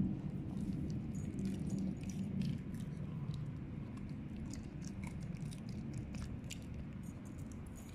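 A West Highland White Terrier chewing and gnawing a toothbrush-shaped dental chew, with many small irregular crunching clicks.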